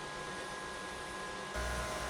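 Small electric fan running with a steady hiss and a thin whine. About one and a half seconds in, the sound changes abruptly, becoming louder and deeper with a second whine.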